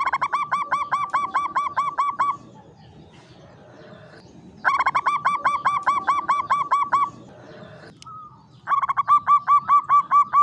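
Zebra dove (Javanese perkutut) cooing. It calls in three bouts of rapid, evenly repeated hooked notes, about five a second, each bout a little over two seconds long with short pauses between.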